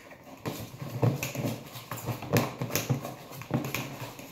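Hands squishing and slapping through a sticky fluffy-slime mixture of glue and foam soap in plastic bowls, making irregular squelches.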